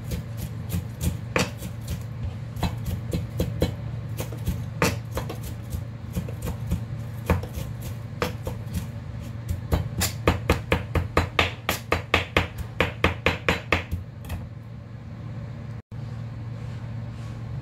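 Chef's knife chopping on a plastic cutting board, mincing: irregular sharp chops that quicken into a fast, even run of about four to five a second for several seconds near the end, over a steady low hum.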